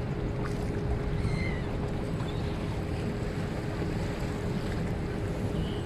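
Boat under way on a river: water rushing and splashing past the hull, wind buffeting the microphone, and a steady hum from the boat's motor.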